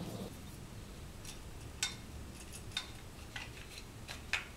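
A few faint, short clicks of pistol parts being handled as the recoil spring and its guide rod are fitted back into a BBM Bruni GAP blank-firing pistol during reassembly.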